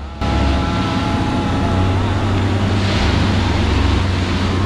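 Railway track tamping ('packing') machine running: a steady, loud low drone under a broad mechanical rattle and rush, with no distinct strokes.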